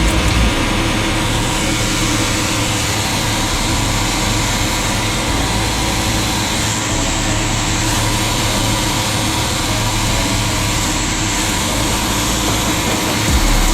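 Engine of job-site concrete machinery running steadily, a continuous loud drone with a low hum.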